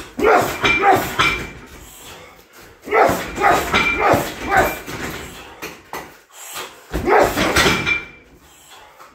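Three quick flurries of strikes on a heavy bag, each a run of four or five hits in about a second and a half, mixed with sharp pitched vocal cries.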